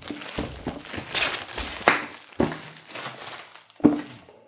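Plastic shrink-wrap being torn and peeled off a board game box, crinkling and crackling in irregular bursts, with a short knock about four seconds in as the box is handled.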